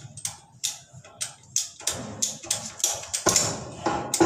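Rapid rasping strokes from a hand tool worked against a water pipe, about three or four a second, running together into one longer rasp near the end.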